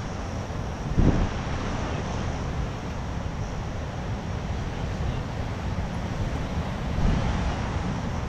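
Wind buffeting the microphone: a steady rumbling rush with gusts about a second in and near the end.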